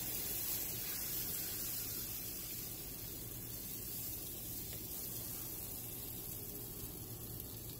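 Steady sizzling hiss of waffle batter cooking in an electric waffle maker, slowly getting quieter.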